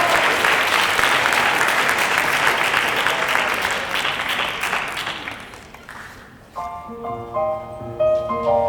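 Audience applause that dies away over about six seconds, then a piano begins playing, its notes and chords starting about six and a half seconds in.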